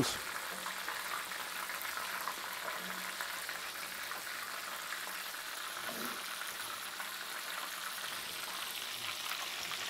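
Bull testicles frying in hot oil in a cast-iron skillet: a steady sizzle and bubbling of the oil.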